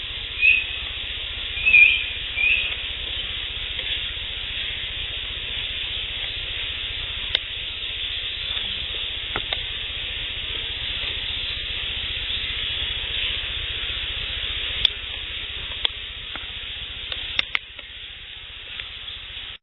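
Outdoor field recording over a steady hiss: three short high chirps about a second apart, then a few scattered sharp clicks or snaps. The recordist counts such sounds among the mouth sounds she attributes to Sasquatch.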